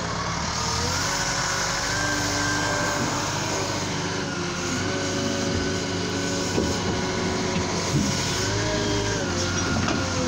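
Liebherr L554 wheel loader's diesel engine running, its pitch rising and falling several times as the machine drives and works the bucket. Two short knocks come in the second half.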